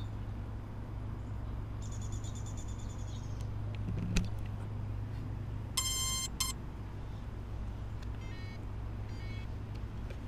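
Electronic beeps over a steady low hum: a high, buzzy tone early on, a single strong beep of about half a second just past the middle, and a couple of fainter beeps near the end, with a short thump in between.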